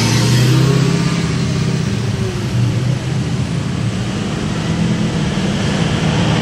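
A motor vehicle's engine running steadily, with a low drone.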